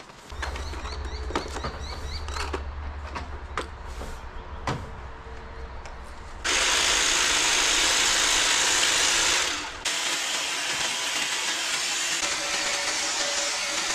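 Small-engine garden power tool ticking over with a low hum and some clicking, then opened up to full throttle for about three seconds. It drops off sharply and carries on at a lower, steady running level.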